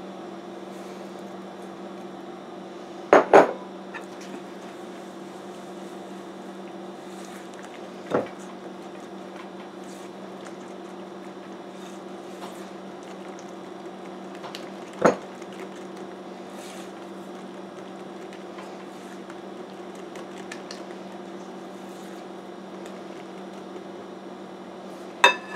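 Hand whisk stirring batter in a glass mixing bowl: faint scraping and ticking over a steady low hum, with a sharp double knock against the dishes about three seconds in and lighter knocks around eight and fifteen seconds.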